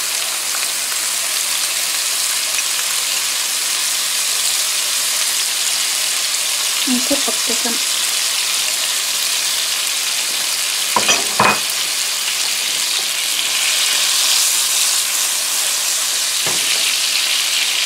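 Steaks searing in hot oil and melting butter in a nonstick frying pan: a steady, high hissing sizzle. A couple of light knocks come about eleven seconds in, and another near the end.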